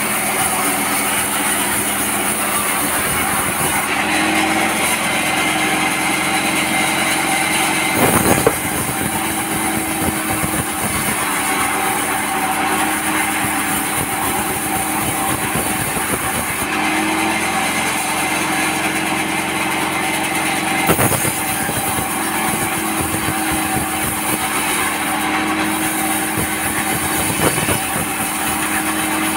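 A vertical band sawmill running and ripping a slab of hard tropical timber lengthwise: a steady machine drone with a few sharp knocks, the loudest about 8 and 21 seconds in.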